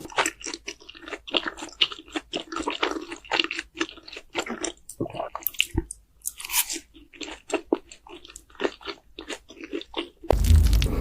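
Close-miked chewing and biting of cheesy noodles and sausages: a dense run of rapid mouth clicks, with a short pause about six seconds in. Near the end a louder low rumble takes over.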